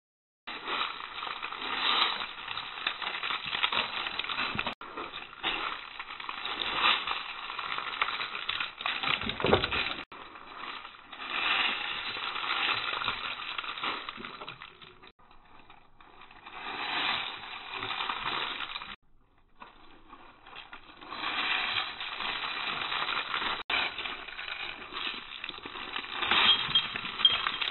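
Rustling and crackling, in several stretches broken by abrupt cuts.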